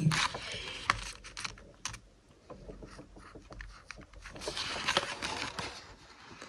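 Paper sheets of a ring-binder planner being handled, with light clicks and rustles, then a pencil scratching as it writes on the paper about four seconds in.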